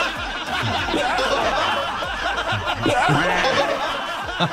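People laughing and chuckling over a music bed.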